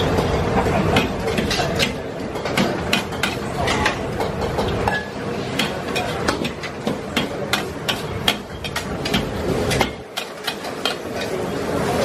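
Metal spatula clanking and scraping against a steel wok in quick, irregular strokes as pad thai is stir-fried, over a steady bed of sizzling and burner noise.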